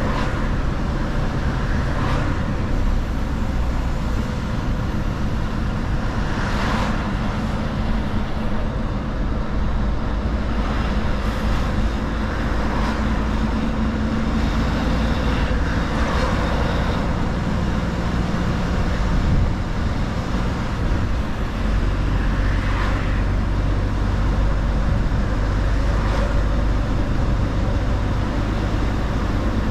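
Mercedes-Benz Actros L truck under way: a steady low engine drone mixed with tyre and road noise. A few short swells sit in the road noise, and the low rumble grows stronger about twenty-one seconds in.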